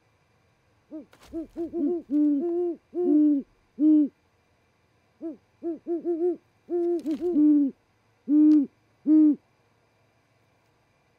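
A pair of great horned owls hooting, in two runs of deep hoots at two different pitches that overlap and answer each other: a duet between the mates. Two short knocks come among the hoots.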